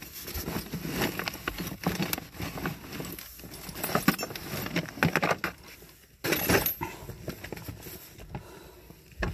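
Hand rummaging through a soft zippered fabric tool bag: metal tools and sockets clinking and fabric rustling in irregular bursts, with one louder scrape of noise about six seconds in.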